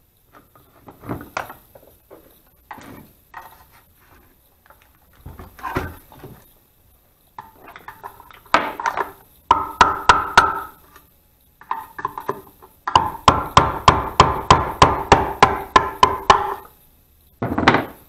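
Hammer blows on the rusty metal housing of a sump pump whose motor is seized. Scattered knocks and handling clatter come first, then sharp ringing strikes in a quick even run of about three to four a second, and one last knock near the end.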